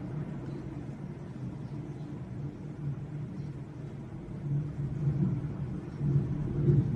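A low, steady rumble that swells louder over the last couple of seconds.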